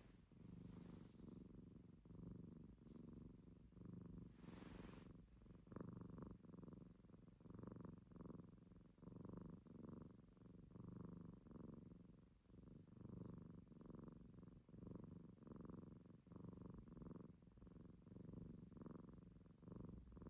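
A cat snoring: a faint, soft rasping buzz on each breath, repeating in a steady rhythm. A brief rustle comes about four to five seconds in.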